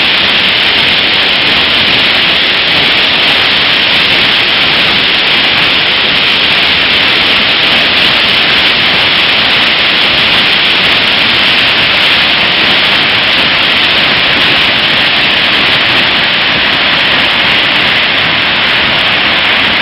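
Floodwater released from the Belesar dam's spillway plunging into the river gorge in a huge spray plume: a loud, steady rushing roar of falling water that does not let up.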